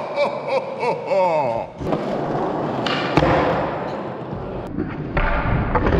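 Skateboard wheels rolling on a smooth concrete floor during a trick attempt, with a sharp clack of the board about three seconds in and a heavy thud a little after five seconds.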